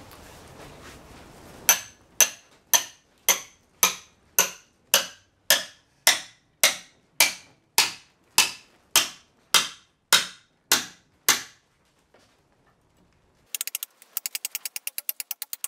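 Hammer driving a steel drift pin into the timber shaft log: about eighteen sharp, evenly paced blows, roughly two a second, each ringing briefly. They stop, and near the end there is a quick run of rapid small clicks.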